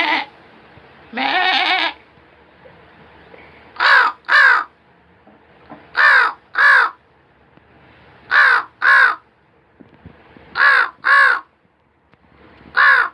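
A man mimicking a crow with his voice: paired caws, two short calls at a time, repeated five times about two seconds apart. About a second in, one longer bleat-like call comes before the caws.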